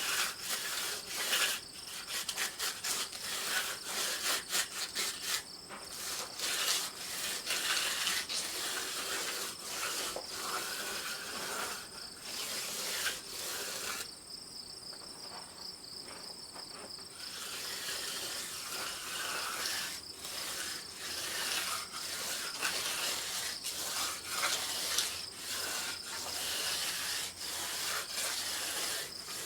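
Repeated irregular scraping strokes, stopping for about three seconds midway, over a steady high chirring of insects.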